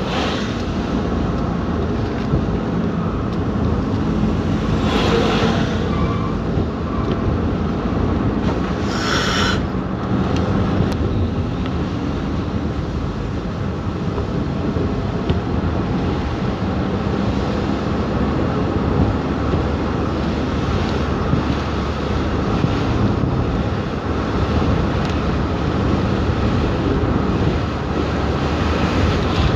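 Car driving on a wet road, heard from inside the cabin: a steady drone of engine and tyres with a low engine hum. There are two brief hissing swishes about five and nine seconds in.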